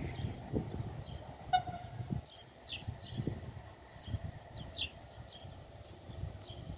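Electric multiple unit train approaching at a distance: a faint, low rumble. A brief pitched tone sounds about one and a half seconds in, and short high chirps come every second or so.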